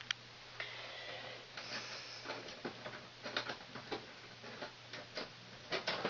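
Irregular small clicks and brief rustling from wires and a small hand tool being handled while low-voltage thermostat wires are connected at an air handler control board. One sharp click comes right at the start.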